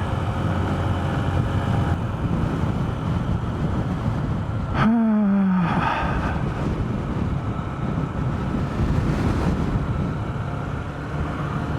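Honda CB125F's single-cylinder four-stroke engine running at road speed, with gusty wind buffeting the microphone. About five seconds in, the engine note drops sharply in pitch for under a second, then steadies again.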